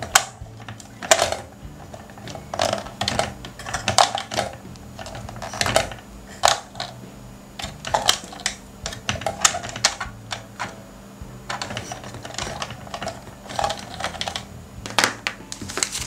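Hard plastic toy parts being handled: the doors of a toy vehicle clicking open and shut and plastic pieces tapping together, in a quick, irregular run of sharp clicks and taps.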